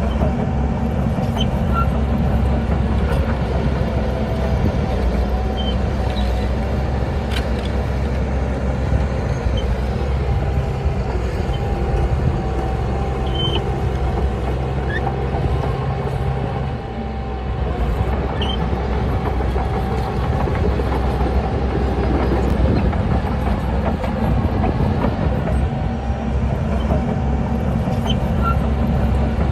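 Bulldozer's diesel engine running steadily under load, with a steady higher whine above it and occasional sharp metallic clanks. The engine eases off briefly a little past halfway, then picks up again.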